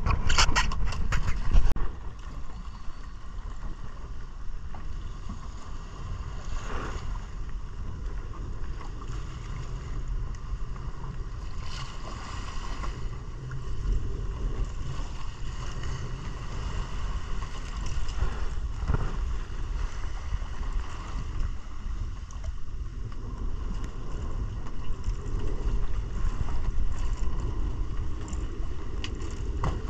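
Small boat under way at sea: a steady rumble of the 150 hp outboard motor mixed with wind buffeting the microphone and water rushing past the hull. A few sharp clicks come in the first couple of seconds, and a few brief louder swishes follow later.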